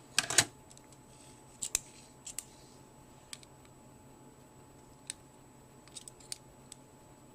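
Sharp clicks and taps of a metal ratchet and a measuring tool being handled: a quick clatter of several clicks about a quarter second in, then about a dozen lighter, scattered ticks.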